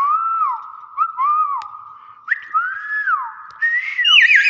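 Hill myna whistling: three clear notes that each rise and fall in pitch, then a quicker, louder, higher twisting run near the end.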